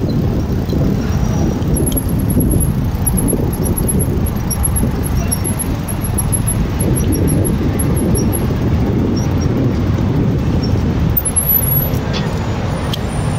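City traffic noise: a steady low rumble of cars and trucks on the street.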